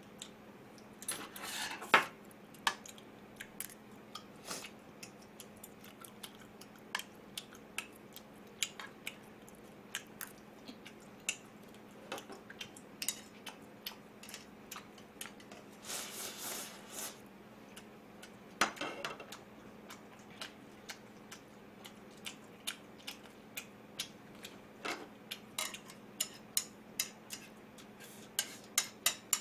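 Metal cutlery clinking and tapping against a plate and pot while eating, in many short, irregular clicks, with a few longer noisy sounds about two seconds in and just past the middle. A faint steady hum runs underneath.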